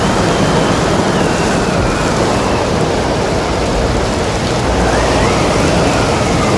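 Storm wind and waves: a steady rush of water and wind noise, with a thin whistle of wind that slowly rises and falls in pitch.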